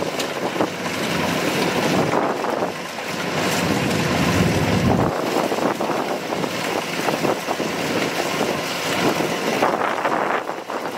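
Kubota DC-105X combine harvester running steadily as it harvests rice, its diesel engine and threshing machinery making a dense, continuous mechanical noise.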